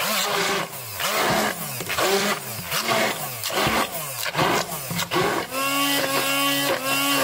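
Hand-held immersion blender motor running as it purées boiled pumpkin chunks in a steel pot. Its pitch drops again and again, about twice a second, while it is worked through the chunks, then holds steady near the end as the mash turns smooth.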